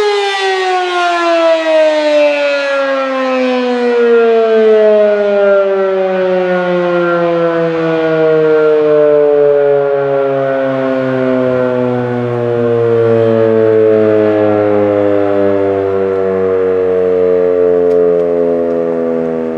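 American Signal RM-127 eight-port mechanical warning siren winding down at the end of its Alert tone, its wail falling slowly and steadily in pitch and still sounding as the rotor coasts.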